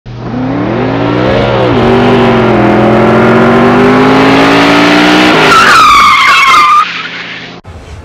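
Race car engine revving, its pitch climbing slowly, then a tire screech from about five and a half seconds in that wavers and cuts off abruptly near seven seconds.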